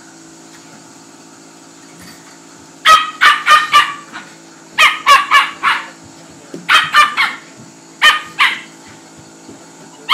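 A small dog yapping in quick, high-pitched clusters of two to four yaps, starting about three seconds in and coming back every second or two, over a steady low hum.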